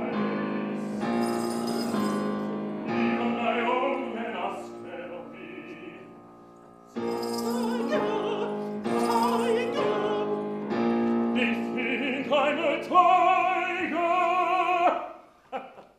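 Operatic singing of held notes with vibrato. The music drops away about six seconds in, comes back a second later, and stops shortly before the end.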